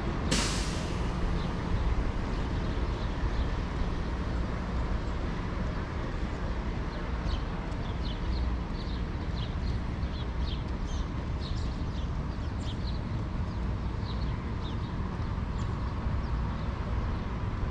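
Steady low rumble of city traffic, with a brief hiss just after the start. Small birds chirp in quick short calls from about seven seconds in until near the end.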